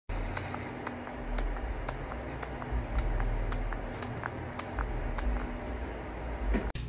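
Newborn baby sucking on a pacifier, making soft, regular clicks about twice a second.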